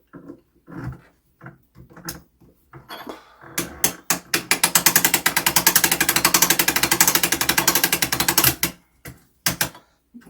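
Clock mainspring winder being worked to let down an old strike-side mainspring: a few scattered knocks and clicks, then about five seconds of rapid, even ratchet clicking that stops sharply.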